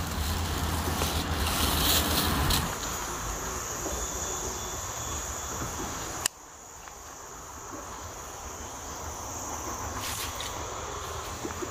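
Steady high-pitched drone of insects over a background hiss, with a low rumble in the first couple of seconds. A single sharp click comes about six seconds in, after which everything is quieter and slowly builds back up.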